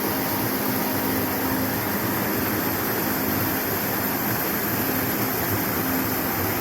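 Creek water rushing in a steady, even wash that cuts off suddenly at the very end.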